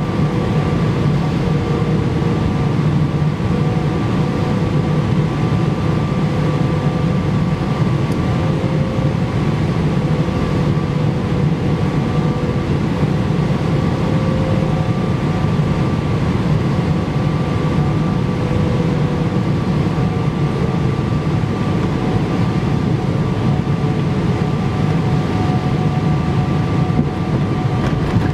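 Cabin noise inside a Boeing 777-300ER on final approach with the landing gear extended: a steady low roar of airflow and its GE90 engines, with a few faint, steady whining tones over it.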